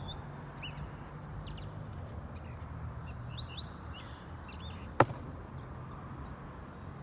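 Outdoor ambience: scattered short bird chirps over a low steady hum, with a single sharp click about five seconds in.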